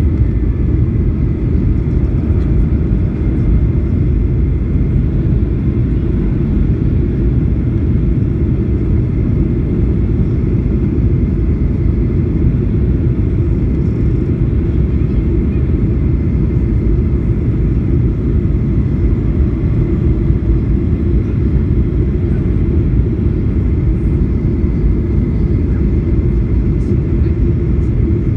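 Steady cabin noise of a Boeing 737-800 in flight, heard over the wing at low altitude on the descent: a loud, even rumble of engines and airflow with a faint thin whine held high above it.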